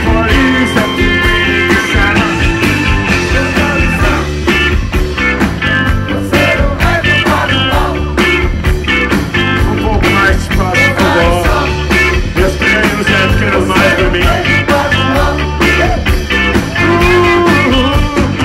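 Live rock band playing loudly, with electric guitars, drums and keyboards, and a lead line wavering in pitch over a steady beat, heard from among the audience.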